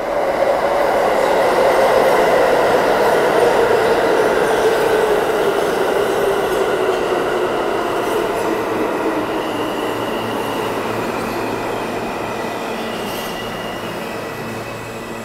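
R160 subway train entering the station and braking: loud wheel-on-rail rumble with a whine that falls steadily in pitch as the train slows. Thin high squeals come in during the second half.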